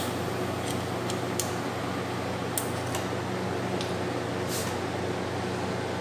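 Window-type TCL air conditioner running with a steady hum, the unit switched on during thermostat testing. Several sharp metallic clicks and ticks at uneven intervals, from a screwdriver working on the thermostat switch, and a brief hiss about four and a half seconds in.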